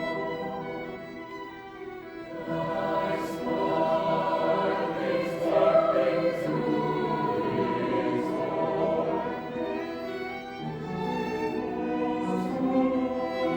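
Choral music with orchestral accompaniment: voices holding long sustained chords over strings.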